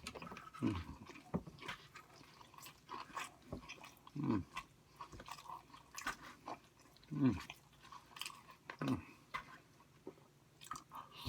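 Close-up chewing and biting, with crunches and wet mouth clicks all through. Now and then comes a short, low hum that falls in pitch.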